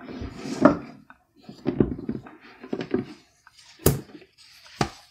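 Cardboard game boards handled and shifted about in their box: scraping and rustling, then two sharp taps about a second apart near the end.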